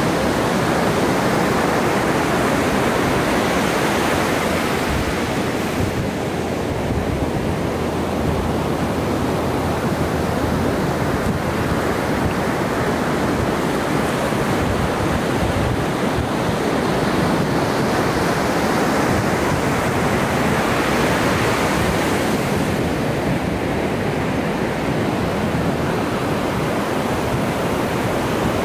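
Ocean surf breaking and washing onto the beach: a continuous loud rush of white water that swells and eases about twice.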